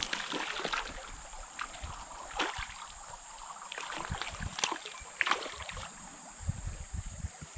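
Irregular splashing and sloshing of water as a hooked brown trout fights at the surface, over the steady rush of a small creek.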